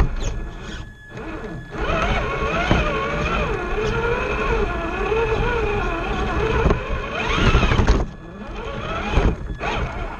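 Radio-controlled scale rock crawler's electric motor and gear train whining, the pitch wavering with the throttle and climbing sharply just before it stops about eight seconds in. Under it are a low rumble and a few knocks from the chassis and tyres working over the course.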